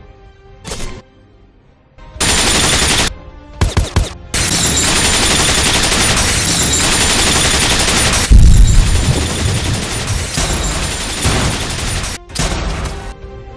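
Film sound effects of sustained automatic gunfire over music, with a heavy boom about eight seconds in.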